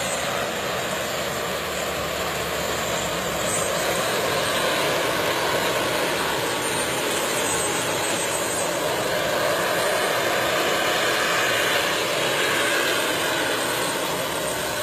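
Radio-controlled model helicopter flying, its engine and rotor running steadily and growing a little louder about four seconds in and again later.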